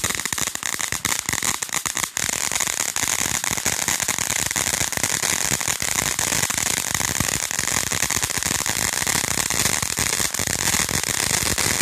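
Ground fireworks fountain burning: a steady spraying hiss thick with dense crackling.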